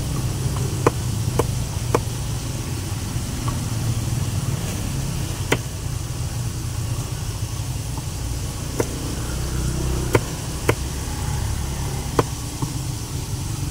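Kitchen knife cutting carrot sticks on a round wooden chopping block: sharp single knocks of the blade against the board, about eight of them, spaced irregularly, over a steady low rumble.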